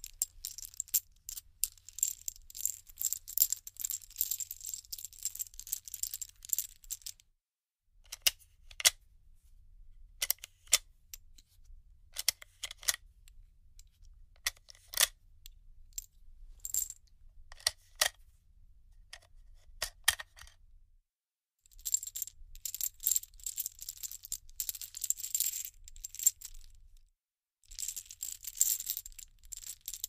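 Loose bullet cartridges clinking and jangling against one another, with bright metallic clicks. Dense clattering runs come at the start and again in the last several seconds, with scattered single clinks in between.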